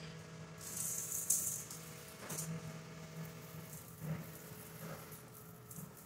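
A pump-up tank sprayer spraying liquid onto a tile floor, with a loud hiss of spray about a second in, followed by rattles and knocks as the sprayer is handled and carried. A steady low hum runs underneath.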